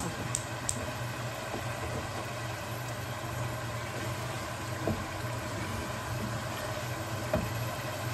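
Steady low mechanical hum with a hiss over it, and two faint knocks about five and seven and a half seconds in.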